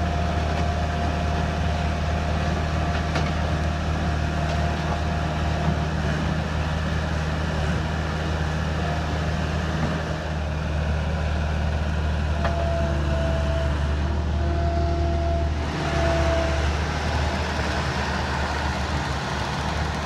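Rhino RS50-S skid steer's engine running steadily with a deep drone. A thin higher whine comes and goes over it, heard at the start and again about twelve to sixteen seconds in.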